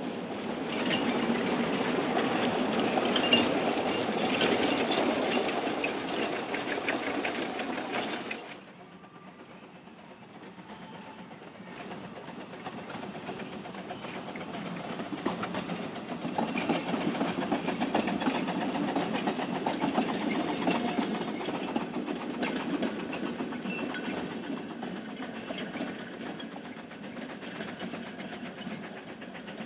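Small narrow-gauge Quarry Hunslet saddle-tank steam locomotives passing close with their coaches: fast exhaust beats and the rattle and clicking of wheels over the rail joints. The sound drops off abruptly about eight and a half seconds in, then builds again as a second train passes, loudest a little past the middle, and fades toward the end.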